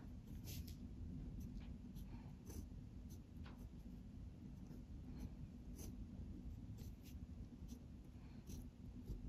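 Zebra Sarasa gel pen writing kanji on a paper worksheet: a series of faint, short scratchy pen strokes, one or two a second, over a low background hum.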